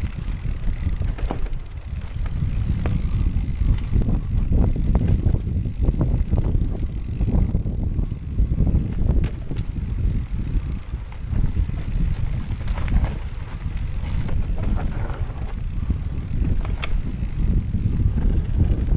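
Mountain bike rolling down a dirt forest trail: wind buffeting the action camera's microphone over the tyres' rumble, with scattered clicks and rattles from the bike over bumps. The rumble swells and fades with the ride's speed.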